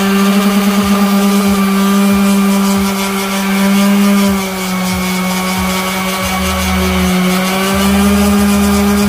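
Hyper Tough electric random orbital sander running steadily while sanding the edge of a wooden chopping board. Its motor pitch sags a little partway through as it is pressed into the wood, then picks back up near the end.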